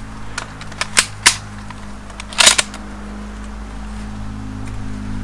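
Steyr Scout bolt-action rifle handled by hand: a series of sharp metallic clicks and clacks from the action, two loud ones about a second in and the loudest, slightly longer clack about two and a half seconds in.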